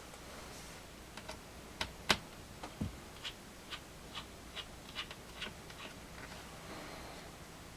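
Light, irregular clicks and taps of a small screwdriver working the screws of a laptop's plastic screen bezel. There are about a dozen, a little over one a second, and the sharpest comes about two seconds in.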